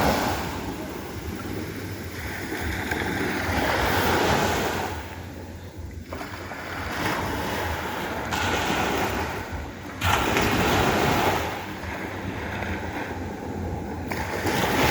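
Sea waves breaking and washing up the beach in surges every three to four seconds, one coming in sharply about ten seconds in, with wind rumbling on the microphone.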